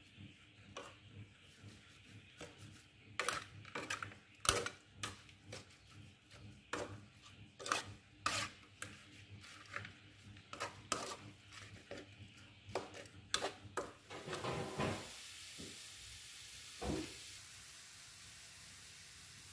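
Metal spatula scraping and clacking against a wok as chicken with chili and leaves is stir-fried, in irregular strokes about one or two a second. About 14 seconds in the stirring stops and a steady sizzling hiss of chicken frying in oil takes over.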